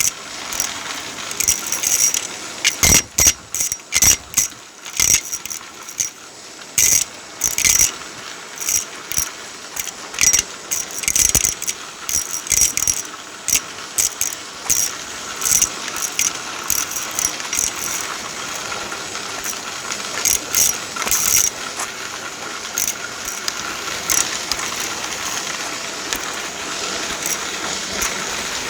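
Many sharp clicks and rattles of small hard objects over a steady whir. The clicks come thick and loud in the first half, then thin out until mostly the whir is left.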